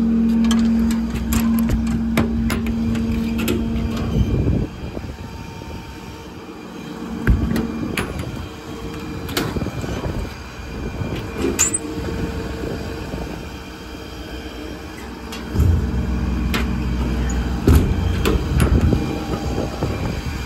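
A steady hum from the Ford F550's 6.7 Power Stroke diesel idling, which drops away about four seconds in and returns near the end. Scattered metal clicks and clunks come from the service body's compartment doors and latch rods being handled.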